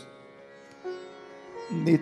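Soft harmonium accompaniment holding sustained notes, changing pitch a few times, before a man's voice comes back in near the end.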